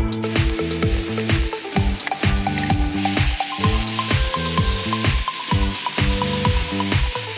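Beef steak sizzling on a hot griddle plate over a wood fire; the loud sizzle sets in suddenly at the start and holds steady. Background music with a steady beat plays underneath.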